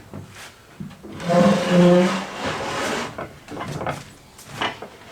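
A small handheld power tool's motor runs for about two seconds, starting about a second in, with scattered wooden knocks and clatter around it.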